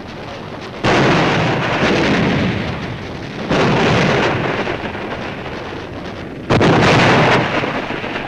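Three exploding shells, each starting suddenly and fading into a rumble over a second or two: one about a second in, one about three and a half seconds in, and a loud one about six and a half seconds in.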